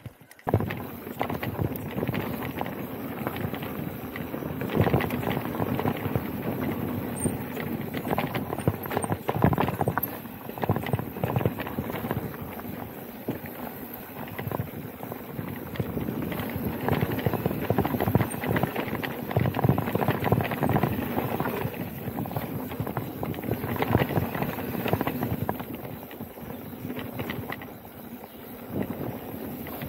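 Specialized Turbo Levo e-mountain bike riding fast down a dirt singletrack: tyres rolling on the dirt and the bike rattling over bumps in an uneven clatter of knocks, starting suddenly about half a second in.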